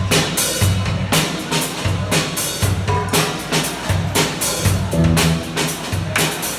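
Live band playing the opening groove of a funk-rock song: drum kit beating out an even rhythm under a low, repeating bass line.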